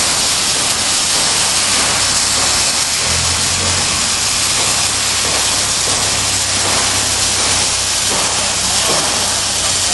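Wire-feed welding arc on a Bug-O automated welding carriage, a loud steady hiss with a light crackle over a faint low hum.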